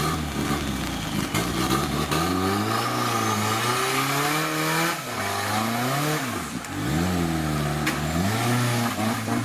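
Competition off-road 4x4 engine revving hard in repeated surges, its pitch dropping away and climbing back up several times.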